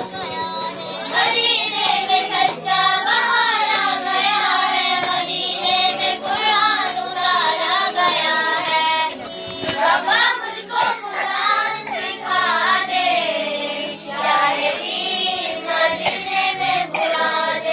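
A group of women singing a naat, an Islamic devotional song, together in high voices, the melody wavering in long sung phrases with short breaks.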